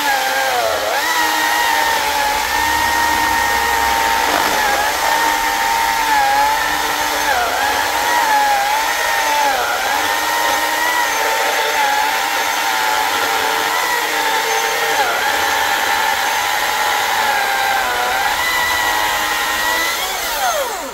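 Greenworks 82V battery chainsaw with a 24-inch bar cutting through a large log: a steady electric motor whine with the chain rasping through wood. Its pitch sags briefly now and then as the chain loads up in the cut, and it stops abruptly at the end as the bar clears the log.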